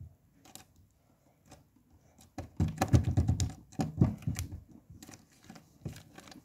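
Pink slime pressed and kneaded with fingertips on a tabletop: a few faint clicks, then about two seconds in a louder run of crackling pops and squelches lasting about two seconds, easing back to occasional clicks.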